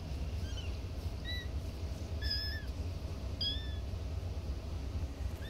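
Young kittens mewing: about four short, high-pitched cries roughly a second apart, the one about two seconds in the longest, over a steady low hum.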